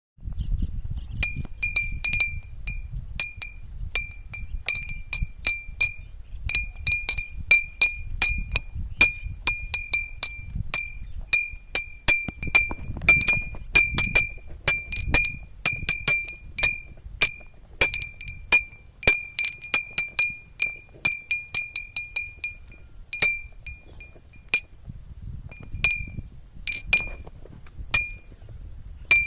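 A homemade, unpowered crop noisemaker clinking over and over: a striker hits the same small ringing piece at irregular intervals, several times a second, each strike ringing at the same high pitch, over a low rumble.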